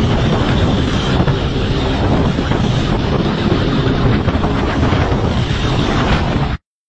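Motorcycle riding at speed: engine noise mixed with wind rushing over the microphone, a dense steady rush that cuts off abruptly near the end.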